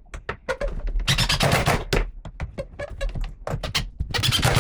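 Cordless impact driver driving screws into a wardrobe panel: two bursts of rapid hammering clatter, the first about a second in and the second near the end.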